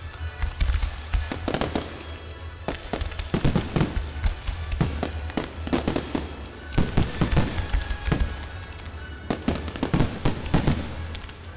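Fireworks display: a dense barrage of sharp bangs and pops from comets and aerial shells, with two brief lulls about two seconds and eight seconds in.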